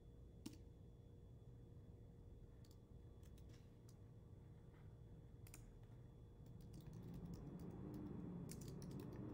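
Faint, irregular keystrokes on a computer keyboard, typed in scattered small runs.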